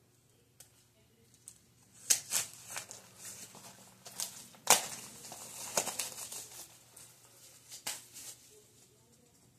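Plastic wrapping on a Blu-ray box set being torn and crinkled by hand, in an uneven run of sharp crackles and rustles. The loudest snaps come about two seconds in and again near five seconds.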